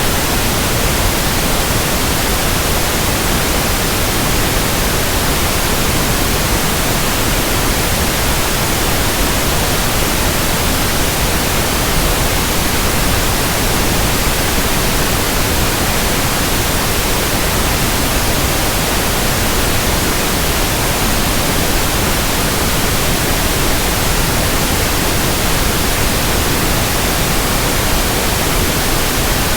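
Steady pink noise: an even, unchanging hiss spread across the whole range of pitch, played as a tinnitus-matching sample.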